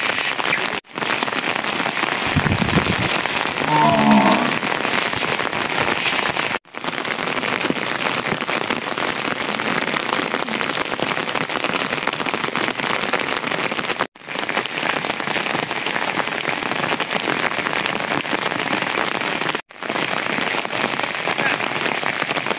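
Steady rain falling, an even hiss of drops on roofs and wet ground, breaking off for a split second four times.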